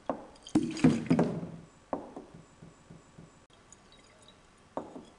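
Liquid sloshing in a stoppered glass conical flask as it is shaken, fading after the first second or so. Then come single sharp knocks of glass, about two seconds in and again near the end.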